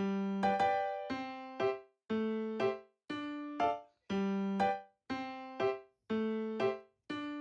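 Background music: a keyboard melody in a bouncy repeating pattern, a longer note followed by a short one about once a second.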